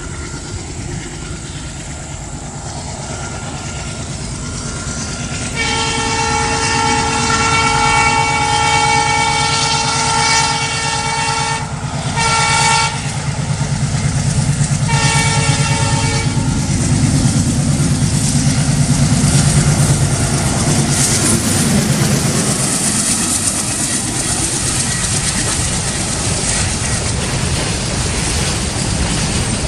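Diesel locomotive horn sounding one long blast and then two short ones, over the engine's rumble, which grows louder as the train approaches. The train's wagons then rattle past.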